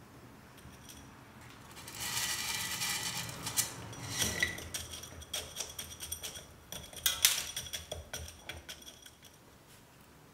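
Granular bonsai soil poured from a metal soil scoop into the pot, the grains rattling and clattering off the metal. It starts about two seconds in and thins to scattered clicks before the end.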